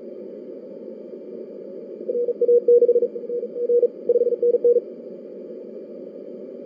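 A Morse code (CW) signal from a shortwave transceiver's speaker: a single tone keyed quickly in short dits and longer dahs for about three seconds, starting about two seconds in. It sits over the steady rushing noise of the band, heard through a narrow CW filter.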